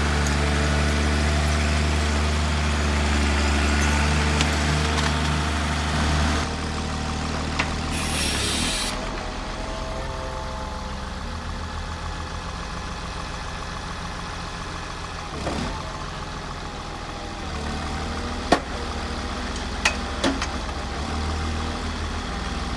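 Heavy machine engine running steadily. Its sound shifts about a third of the way in and carries on a little quieter, with a few sharp knocks or cracks near the end.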